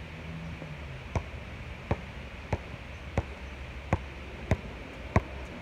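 A basketball being dribbled on a hard outdoor court: sharp, ringing bounces at an even rhythm of about one and a half a second, starting about a second in, over steady outdoor hiss.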